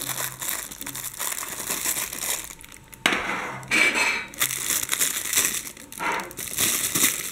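Packaging being handled as a watch is unpacked from its metal tin: crinkling and rustling with light clinks, with a sudden louder burst of crinkling about three seconds in and another shorter one near six seconds.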